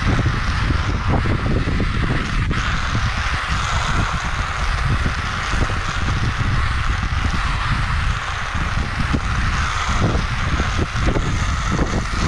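Steady rushing noise of a fast downhill run: wind buffeting the microphone over continuous road noise.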